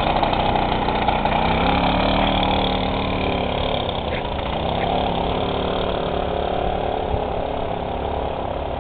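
Piaggio Ciao moped's small single-cylinder two-stroke engine running as the moped pulls away under a rider, its pitch rising about a second and a half in and falling again a few seconds later.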